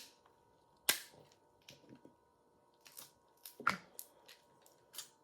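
Crab leg shells cracking and snapping as they are broken open to get at the meat. There is one sharp crack about a second in, then a run of smaller cracks and clicks, plus another near the end.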